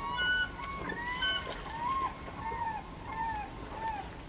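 Birds calling again and again in short rising-and-falling notes, some with a higher clear whistle, over a steady low background rush.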